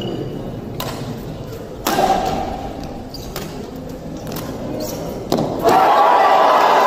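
Badminton rackets striking the shuttlecock in a rally, a few sharp hits spaced a second or more apart. Past five seconds a crowd in a large hall breaks into loud cheering and applause as the point is won.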